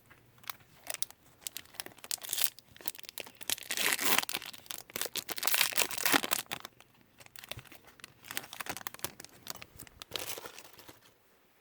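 Wrapping around a bundle of baseball cards being torn open and crinkled by hand: irregular crackling and tearing, loudest around the middle and thinning out near the end.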